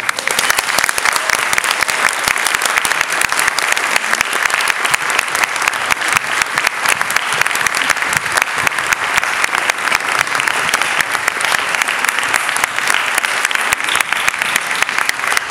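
Large audience breaking suddenly into loud, sustained applause, many hands clapping together in a dense, steady patter.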